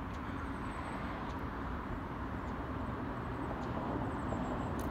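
Steady low outdoor background rumble with a single sharp click near the end.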